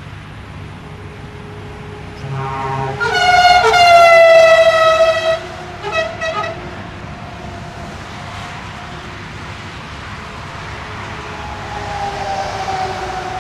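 Truck air horn: one long blast of about two seconds, its pitch sagging slightly, followed by two short toots. Under it runs the steady sound of the truck's engine and road noise, which swells again near the end as a vehicle passes.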